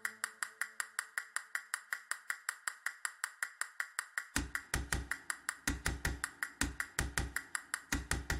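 Instrumental music: a fast, even ticking percussion pattern, with low drum beats joining in about halfway through.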